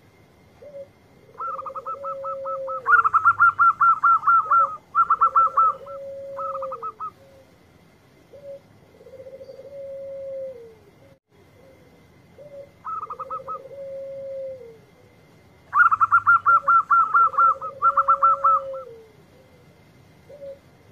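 Zebra dove (perkutut) song: bouts of rapid stuttering trills mixed with repeated lower, drawn-out coos that drop in pitch at the end. It comes in two bouts, with a quieter gap between them in the middle. A faint steady high tone runs underneath.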